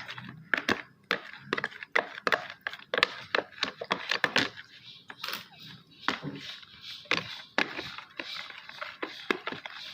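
Slime being stirred as activator thickens it: a run of irregular sticky squelches and clicks.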